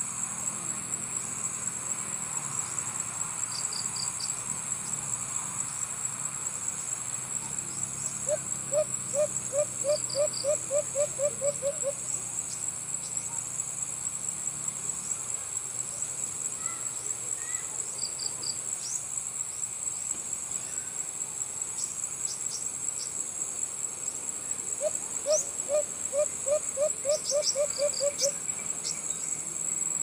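White-eared brown dove (alimokon) calling: two runs of about ten evenly spaced hooting notes, one about eight seconds in and one near the end. A steady high drone of insects runs underneath.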